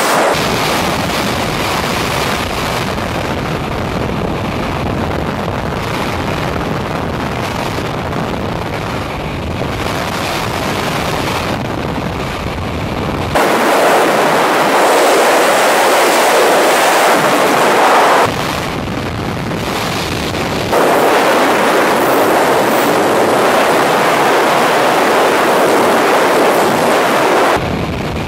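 Freefall wind rushing loudly over a helmet camera's microphone during a wingsuit skydive. The rush shifts abruptly in tone several times, the deep part dropping out and coming back.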